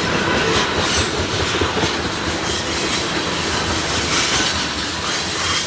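Loaded BNSF oil tank cars rolling past close by, steel wheels clattering steadily over the rails.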